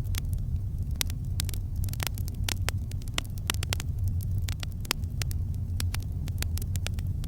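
Campfire crackling: frequent, irregular sharp pops and snaps of burning wood over a steady low rumble.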